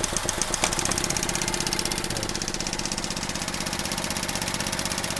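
Car engine idling with a rapid, even ticking, while its EVAP canister purge valve is stuck open. A sharp click comes just under a second in.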